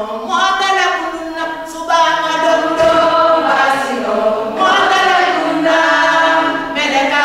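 A group of voices, mostly women's, singing a song a cappella, with long held notes.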